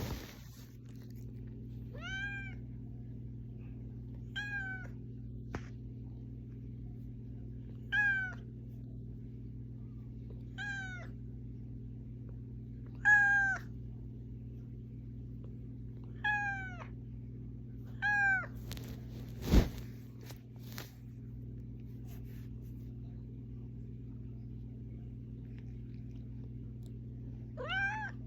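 A domestic cat meowing over and over, eight short calls that each rise and fall, roughly every two to three seconds with a long pause before the last one: insistent meowing to wake someone up. A steady low hum runs underneath, and a single sharp knock comes about two-thirds of the way through.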